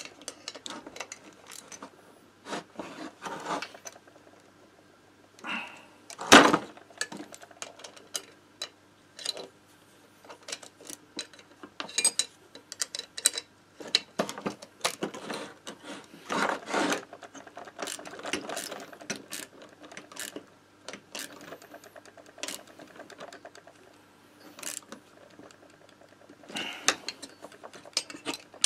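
Metal hand tools and small engine parts clicking, clinking and knocking on a wooden workbench, in irregular bursts with a brief metallic ring now and then, and one sharp knock about six seconds in.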